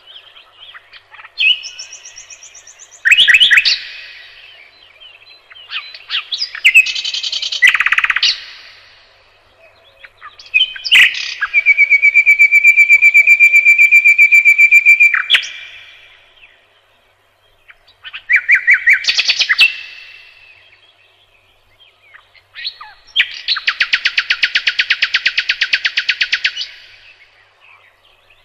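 Nightingale singing in separate phrases with pauses between them: short varied notes, a long fast run of evenly repeated notes in the middle, and a loud rapid rattle near the end.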